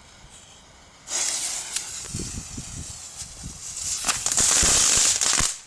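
A Lesli Black Bulls small ground firework goes off about a second in, spraying with a steady hiss and crackling. It grows louder toward the end, then cuts off suddenly as it burns out.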